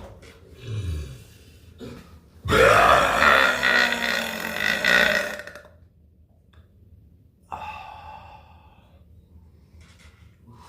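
A person belching: a short, low burp falling in pitch about a second in, then a long, loud belch of about three seconds, then a shorter, higher burp later on.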